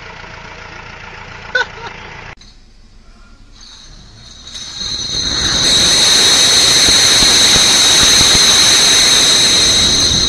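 A forklift engine running, with a sharp knock, then a long, loud crash of tall pallet stacks of glass bottles toppling and smashing, with a high ringing that holds for several seconds.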